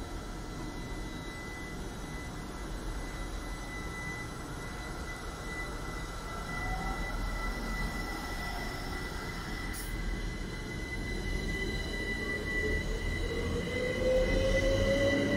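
GWR electric multiple unit moving along the platform, with steady high electrical tones over a low rumble. In the last few seconds a motor whine rises in pitch and the sound grows louder as the train gathers speed.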